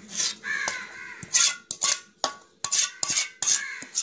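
A spoon scraping cake batter out of a steel bowl into an aluminium cake tin, metal scraping and knocking on metal in about half a dozen quick strokes.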